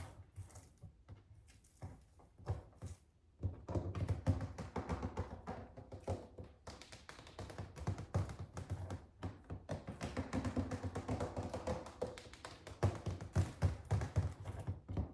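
Tapping on a suitcase: a few scattered taps, then fast, continuous tapping from about three and a half seconds in.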